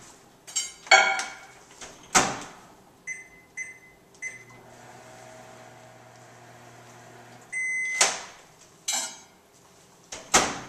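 Over-the-range microwave oven heating a glass jar of water: the door shuts with a thud, three keypad beeps, then the oven runs with a low steady hum for about three seconds. It beeps as it finishes, the door clicks open, the jar clinks as it is taken out, and the door is shut again near the end.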